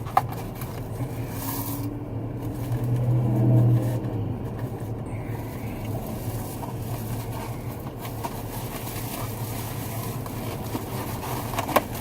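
Steady low hum of an idling car engine. It swells louder for about a second, three to four seconds in, and a sharp click sounds just after the start and another near the end.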